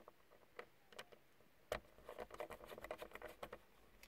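Small screwdriver working the set screw of a rear-view mirror's windshield mount: a few scattered light clicks, then a quick run of small ticks and scrapes about halfway through.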